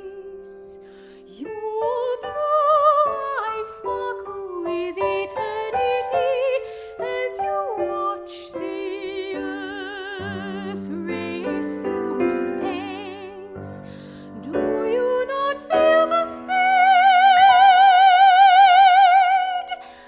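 Classical soprano singing with wide vibrato over piano accompaniment, in a contemporary art song. Near the end she holds one long high note, the loudest part.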